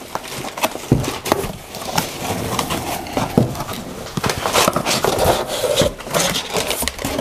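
Cardboard product boxes and their packing being opened and handled: flaps and inserts rubbing and scraping against each other, with a few light knocks.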